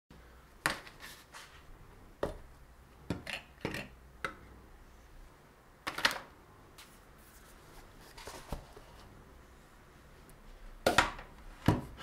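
Boxes, plastic bottles, acrylic tubes and a heat gun being set down one after another on a wooden tabletop: about a dozen short knocks and clatters at irregular intervals, the loudest about six seconds in and near the end.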